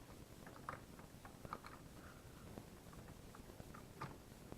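Faint handling noises: small scattered clicks and taps as a USB cable plug is handled and pushed into a charger.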